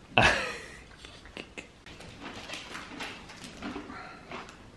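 Small dog giving one short whine that falls in pitch, then faint whimpers and light taps.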